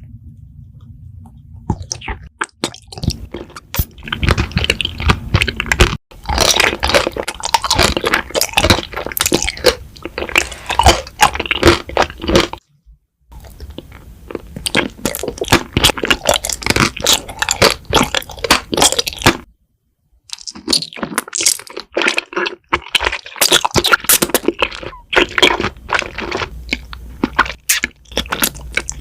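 Close-miked crunchy chewing: a person biting and chewing crisp food, with dense irregular crunches and crackles, pausing briefly twice.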